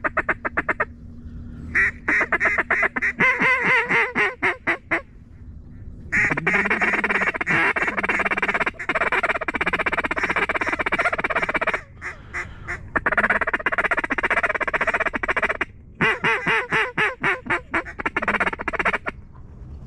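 Mallard duck call blown in four long runs of rapid quacks and feed-call chatter, with short pauses between.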